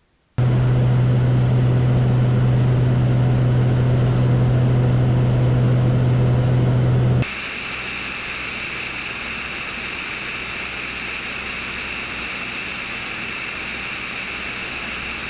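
Cessna 210's six-cylinder piston engine and propeller running steadily in flight, a loud low drone with a steady pitch. About seven seconds in it changes abruptly to a quieter, hissing rush of airflow over a wing-mounted camera, with the engine fainter beneath it.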